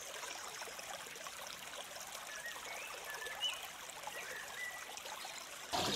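Steady trickle of running water, with a few faint high chirps around the middle. A louder rush of noise starts suddenly near the end.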